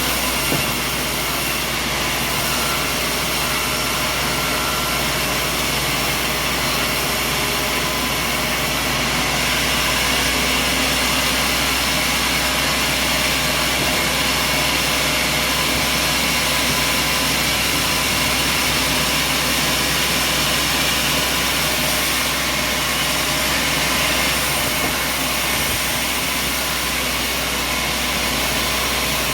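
A machine engine running steadily at a constant speed: an even drone with a hiss above it that does not change.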